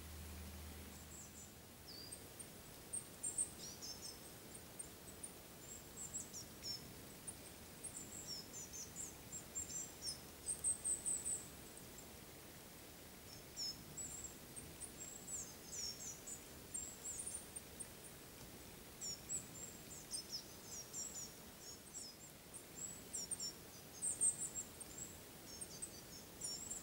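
Small songbirds singing: a busy, irregular run of short, high-pitched chirps and twitters over a faint background hiss. A low hum stops about two seconds in.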